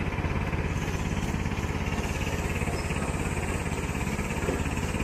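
A small engine running steadily at idle, with a rapid, even throb.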